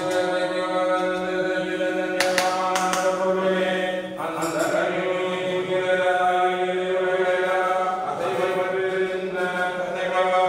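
Several voices chanting in unison on long, held pitches that shift every second or two, with a few sharp clicks about two to three seconds in.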